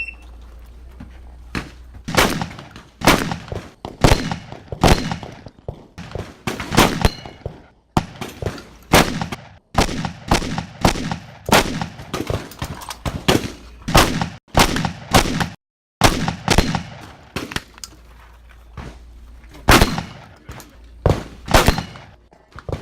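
Shotgun fired in rapid strings, often two or three shots a second, about two dozen shots in all, with short pauses between strings. This is a competitor shooting a practical shotgun stage.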